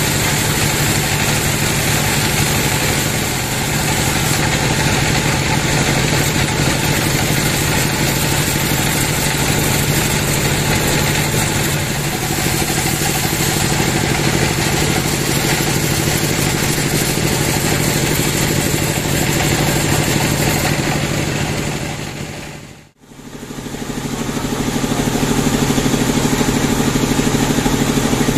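Band sawmill running with its blade cutting lengthwise through a large log: a steady, loud mechanical drone. About 23 seconds in the sound dips out briefly and comes back as the machine keeps running.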